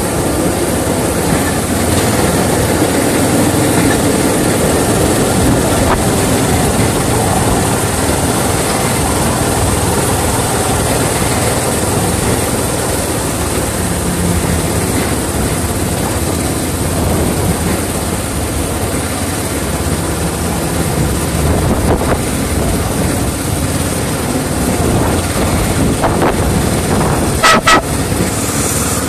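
Miniature railway locomotive running along the track, a steady loud running noise heard from the cab. A brief sharp sound stands out near the end.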